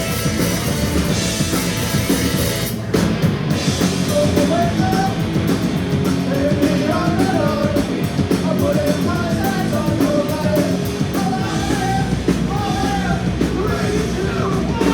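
A live band playing with a drum kit. About three seconds in the music breaks off briefly, then comes back in with steady ticking on top, and a wavering melody line comes in over the drums.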